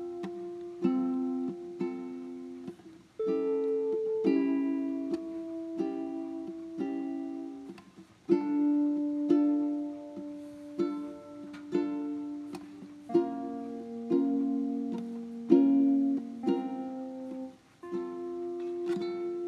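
Background music made in GarageBand: plucked-string chords struck in a steady, even rhythm, the chord changing every few seconds.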